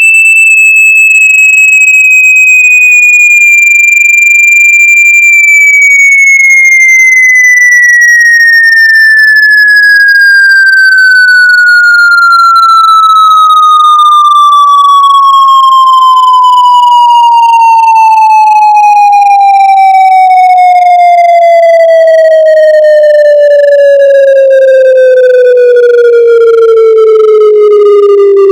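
Loud electronic speaker-cleaning tone, a single buzzy pitch that holds high for about five seconds, then glides steadily down from high to low pitch; the sweep is meant to vibrate water and dust out of a phone speaker.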